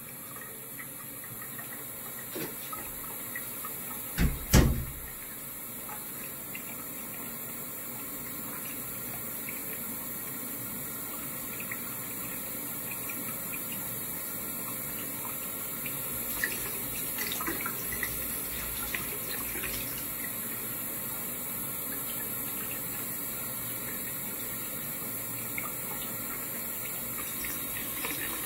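Bathroom sink faucet running in a steady stream into the basin. A dull thump comes about four seconds in, and there are a few small ticks and splashes later on.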